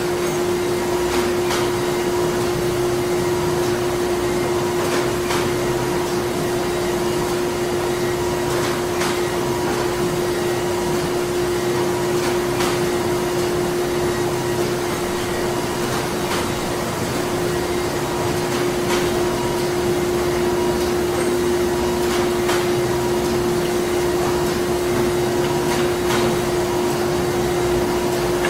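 Printing-plant machinery running steadily: a constant hum with one strong, held drone over a wash of mechanical noise, and scattered faint clicks every few seconds.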